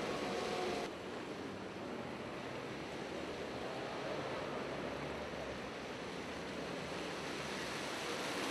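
Steady hiss of rain falling, mixed with tyres on a wet street; the hiss turns a little duller about a second in.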